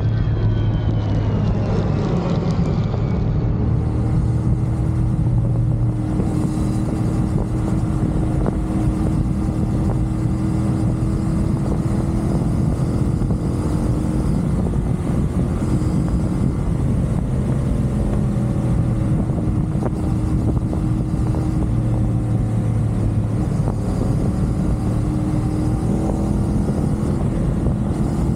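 CFMoto 450SR parallel-twin motorcycle engine running at a steady cruising speed, with wind and road noise.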